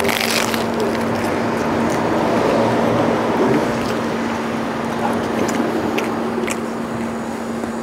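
A crunchy bite into a döner kebab in crisp toasted flatbread right at the start, then close chewing with small crackles, over a steady low hum.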